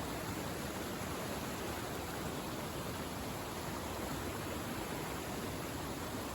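Large waterfall: a steady, even rush of falling water.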